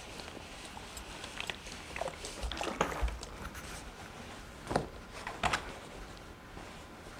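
Soft rustling of fabric with a few light knocks and clicks as an iron is worked around the top edge of a sewn handbag. The clearest clicks come about three, five and five and a half seconds in.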